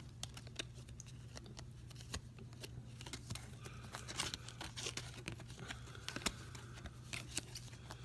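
Faint rustling and scattered small clicks of paper and packaging being handled, over a steady low electrical hum.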